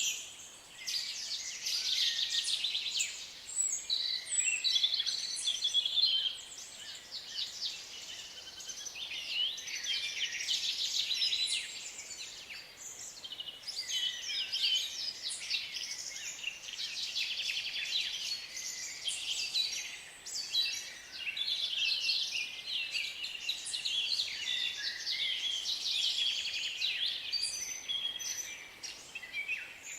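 Forest ambience of many small birds singing and chirping at once, dense overlapping trills and twitters, over a faint steady hiss.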